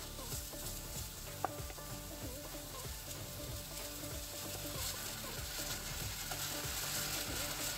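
Minced meat sizzling in oil in a non-stick frying pan while a silicone spatula stirs and scrapes it around the pan. There is a single sharp tap about a second and a half in.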